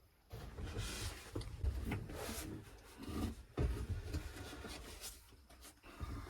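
Irregular rustling and rubbing with scattered low knocks and thumps, like gear or clothing being handled close to the microphone.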